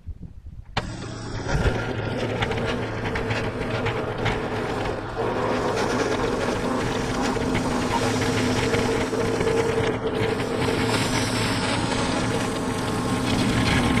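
Gas engine of a Norwood Lumberlite ML26 band sawmill starts abruptly about a second in, then runs steadily at working speed while the band blade cuts through a maple log.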